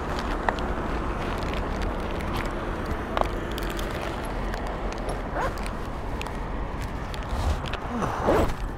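Steady city background noise of distant traffic, with a few brief high squeaks and a louder falling sound near the end.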